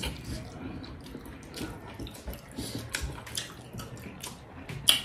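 Eating by hand: soft wet squelching of rice being mixed with gravy on metal plates, with chewing and small mouth clicks scattered throughout and a slightly louder click near the end.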